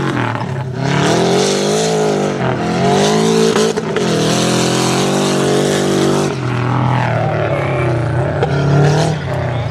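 Off-road race buggy's engine revving up and down again and again as it slides through tight dirt turns, with a hiss of tyres and spraying dirt.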